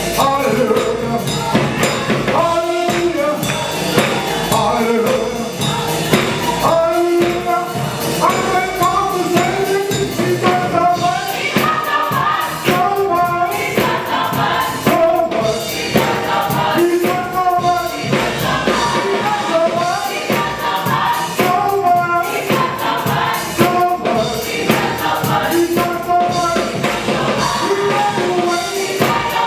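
Gospel choir singing, with organ accompaniment and a steady percussive beat.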